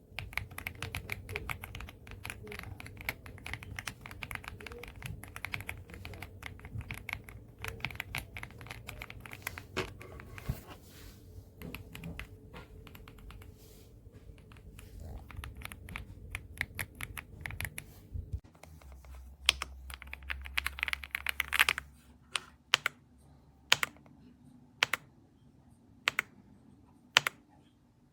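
AULA F75 mechanical keyboard with pre-lubed Reaper switches being typed on: fast, continuous keystrokes for about eighteen seconds, then a short flurry, then single keystrokes about one a second near the end.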